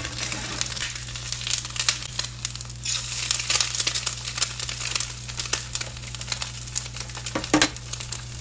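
An egg frying in olive oil in a frying pan: a continuous crackling sizzle full of small pops of spattering oil, with one louder knock near the end.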